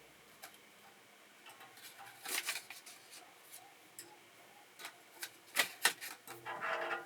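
Irregular light clicks and taps, with a few louder ones about two and a half seconds in and two sharp clicks close together near six seconds.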